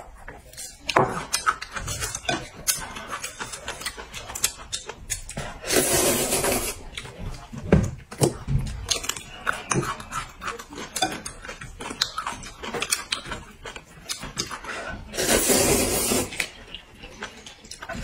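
Mukbang eating sounds: chopsticks and tableware clicking against a bowl and plate, with many small crisp clicks. Two loud slurps of hot and sour noodles, each about a second long, come about six and about fifteen seconds in.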